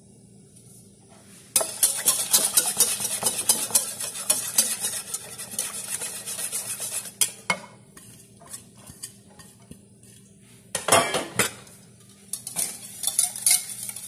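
Fork beating eggs in a small bowl, rapid clinking of metal against the bowl in spurts: from about a second and a half in to about seven seconds, a short burst near eleven seconds, and again from about twelve and a half seconds.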